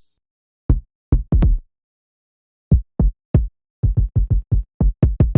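Electronic 808-style bass and kick hits played on their own, with no other parts of the beat: three hits, a pause, three more, then a quicker run of about seven. Each hit is a deep boom with a short click at the front that dies away quickly, with silence between the groups.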